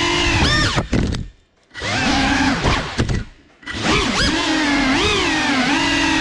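GEPRC CineLog 35 FPV drone's brushless motors whining, pitch rising and falling with the throttle. Twice the throttle is cut and the whine almost stops for about half a second, then climbs sharply again as the motors spool back up.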